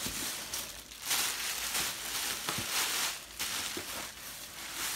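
Plastic bags and packing paper rustling and crinkling as they are handled and lifted out of a cardboard box, in uneven swells with a few faint knocks.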